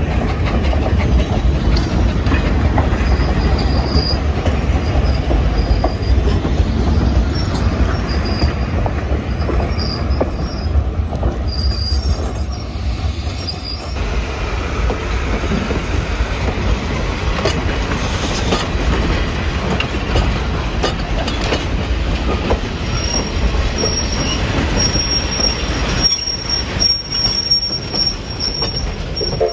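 Railroad cars of a train rolling past close by: a steady low rumble of steel wheels on the rails, with high thin wheel squeals coming and going and a few clicks over the rail joints.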